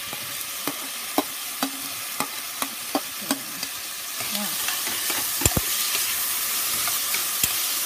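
Onion, almonds, bell peppers, garlic and olives sizzling in oil in a hot frying pan while being stirred, a utensil clicking against the pan about twice a second for the first few seconds. The sizzle grows louder about four seconds in, with a couple of sharper knocks.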